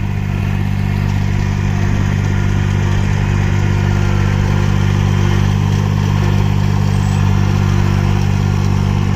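The engine of a piece of farm machinery running at a steady speed, a loud, even low drone that does not rise or fall.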